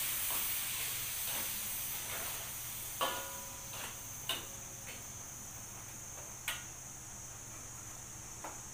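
Garlic, shallots, ginger and galangal sizzling in hot oil in a steel wok as they are sautéed, the hiss dying down over the first few seconds. A few sharp clinks of the metal spatula against the wok.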